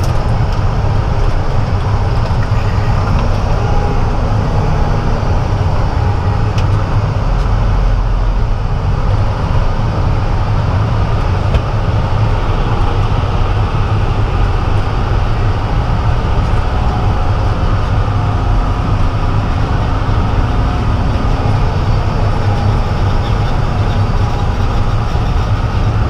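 Steady low drone of a Peterbilt truck's diesel engine heard inside the cab as the truck rolls slowly through the field.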